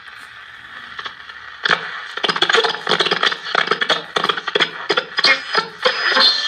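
National Panasonic 441 B transistor radio's speaker hissing with static, then from about two seconds in loud, irregular crackling as the tuning knob is turned across the band.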